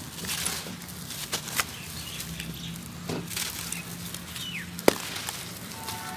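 Dry cement-sand lumps crushed and crumbled between rubber-gloved hands in a bucket: irregular gritty crunching and crackling, with one sharp snap about five seconds in.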